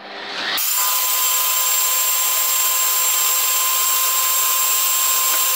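Electric blender motor starting up and reaching full speed within about a second, then running steadily with a high whine as it blends a liquid cream mixture in its glass jug.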